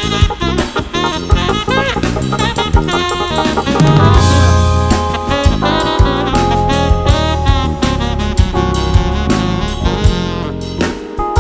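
Instrumental jazz with saxophone over a drum kit keeping a steady beat, with a bass line underneath.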